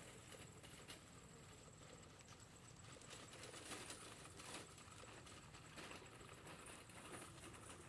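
Near silence: faint ambience with a few soft, scattered taps and a thin, steady high whine.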